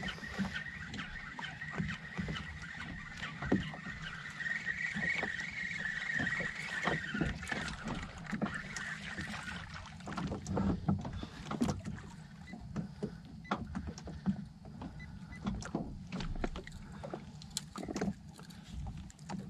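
Small fishing boat on the water: a low steady wash of water with many scattered clicks and knocks, and a faint, steady high tone through the first several seconds.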